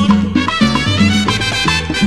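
Salsa record in guaguancó-songo style playing an instrumental passage: a bass line under held chords, with a short percussive note about four times a second.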